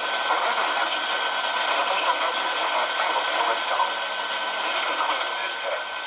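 Radio receiver static and hiss over a broadcast, with a thin steady whistle and a faint voice under the noise.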